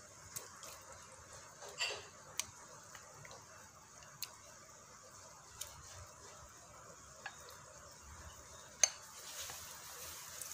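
Scattered light clicks and taps of a utensil against a plate and a non-stick pan as pieces of canned fish are added to the curry, over a faint steady hiss. The taps come at irregular moments, the sharpest one near the end.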